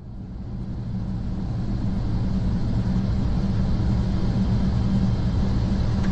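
Airbus A400M's turboprop engines and propellers droning steadily, heard inside the cockpit on approach. The drone fades in over the first two seconds, then holds as a low hum over steady rushing noise.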